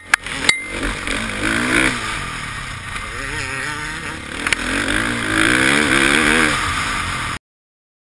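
A KTM 450 XC-F's single-cylinder four-stroke engine being ridden, its revs rising and falling, heard from a helmet-mounted camera. There are a few sharp knocks in the first half second, and the sound cuts off abruptly near the end.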